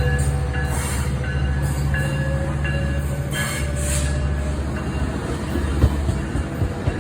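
Train with a diesel locomotive running, giving a steady low rumble that eases off after about five seconds. Thin high-pitched squealing tones, likely from the wheels, come and go over the rumble.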